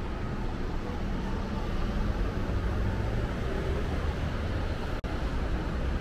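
Steady city traffic noise with a heavy low rumble, which cuts out for an instant about five seconds in.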